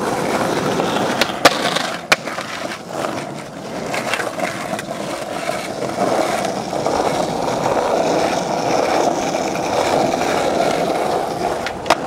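Skateboard wheels rolling over rough asphalt, a steady rolling rumble. A few sharp clacks come about one to two seconds in and again near the end.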